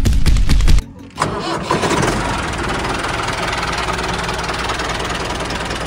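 Tractor engine being started: under a second of cranking, a brief gap, then it catches, revs up and settles into steady running.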